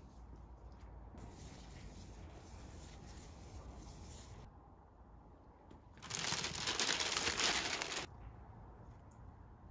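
Gloved fingers rubbing oil around an engine's cylinder bores before the head goes on: a rustling, crinkly rub, loudest for about two seconds past the middle.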